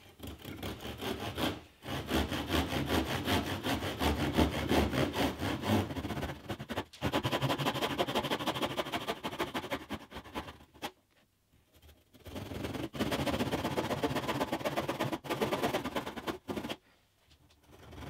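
Backsaw sawing across several ganged-up pine pieces at once, a fast rasping back-and-forth in runs with short pauses, the longest about eleven seconds in. The gang is too wide for the saw to clear its waste easily, so the cut drags.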